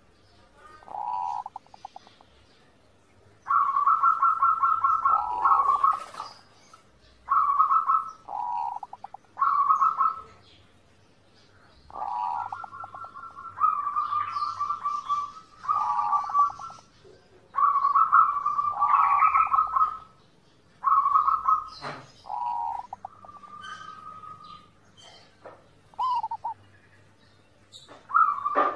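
Zebra doves cooing: repeated rapid, trilled coo phrases, each a second or two long with short pauses between, at two pitches that sometimes overlap.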